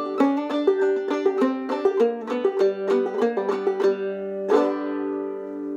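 Enoch Dobson banjo with an 11-inch rim, goatskin head and nylgut strings, played clawhammer style in open G tuning (gDGBD): a quick run of plucked and brushed notes. About four and a half seconds in it ends on one strummed chord that rings on and slowly fades.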